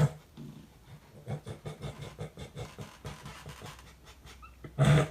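A dog panting quickly and rhythmically, about five breaths a second, with a brief louder noise near the end.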